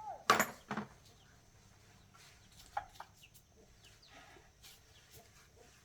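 Two sharp knocks, about half a second apart, from tools or parts being handled during an electric motor repair. A few faint short animal calls follow, one of them near the three-second mark.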